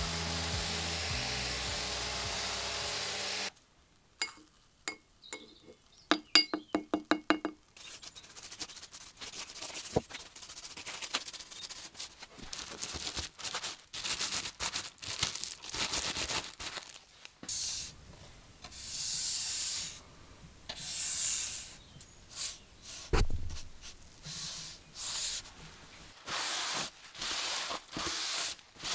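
Background music that stops abruptly about three and a half seconds in, then a few scattered clicks and taps. After that a cloth rubs over bare wood in repeated strokes, about one a second near the end, wiping stain onto a wooden strip and a framed panel.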